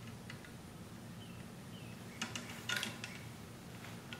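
Light clicks and taps of a steel cleaning rod worked by hand down a rifle barrel, driving a greased lead slug through the bore, with a short cluster of sharper taps about halfway through.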